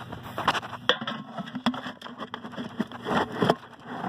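Sweet feed being scattered with a scoop onto dry leaf litter along a wire cage trap, the grains pattering and scraping among the leaves in a run of short, uneven rustles and clicks.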